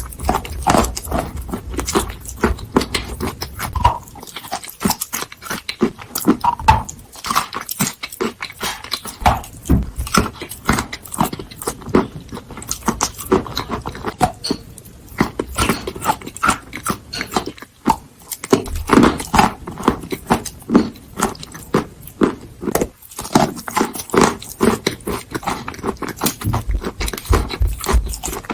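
Chalk being bitten and chewed close to the microphone: dense, irregular crunching and crackling with short pauses between bites.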